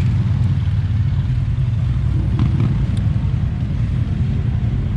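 Lifted Mazda Miata kart's engine running steadily while driving off-road, a low rumble at an even pitch.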